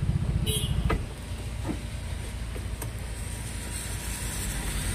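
Road traffic: a motor vehicle's engine running close by for about the first second, then a steadier, quieter rumble of traffic.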